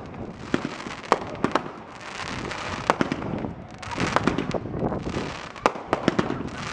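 Fireworks going off: a string of sharp bangs at irregular intervals, with stretches of hissing crackle between them.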